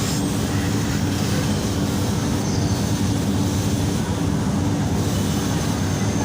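A steady machine hum at an even level throughout.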